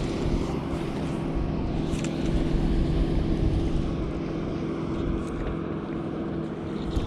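Steady hum of a boat motor running at low speed, with wind rumbling on the microphone.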